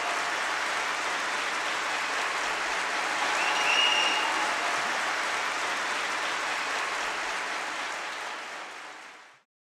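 Audience applauding at the end of a live performance, with a short high whistle about three and a half seconds in; the applause fades down near the end and then cuts off.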